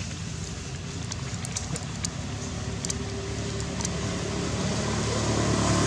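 A steady low engine hum that gradually grows louder, with a few faint clicks in the middle.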